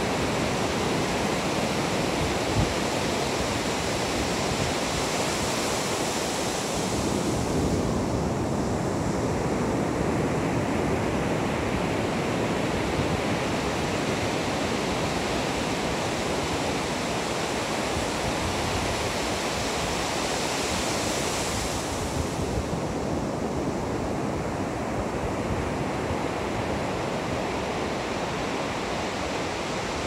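Ocean surf breaking and washing up a sandy beach: a steady rush of water, with the hiss swelling twice, a few seconds in and again about twenty seconds in.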